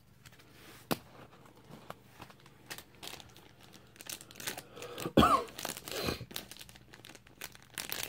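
Mail packaging being handled and torn open by hand: irregular crinkling, crackling and tearing, busier and louder from about halfway, with the loudest rustle about five seconds in.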